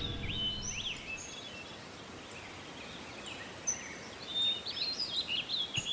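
Birds chirping and twittering over a soft, steady outdoor hiss, the calls growing busier in the second half. The tail of a music cue fades out in the first second.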